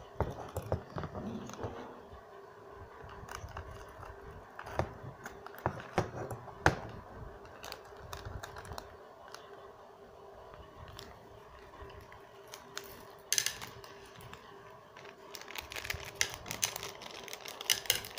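Scissors snipping a plastic candy packet, with crinkling of the wrapper and scattered sharp clicks. Near the end, small hard-shelled candies start clicking onto a plate.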